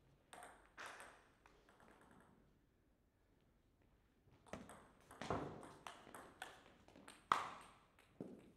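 Plastic table tennis ball struck back and forth in a rally: a quick run of sharp clicks off the bats and the table, starting about four and a half seconds in, with the loudest hit near the end. A couple of clicks come in the first second, before the rally.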